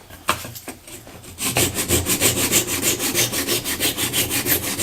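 Hand saw cutting a poplar dowel flush with a pine board, in quick, even back-and-forth strokes that start about a second and a half in and stop just before the end. A single sharp knock comes near the start.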